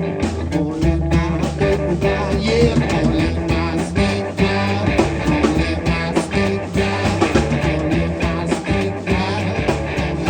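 Live blues-rock band playing an instrumental passage, guitar to the fore over a bass line and a steady drum beat.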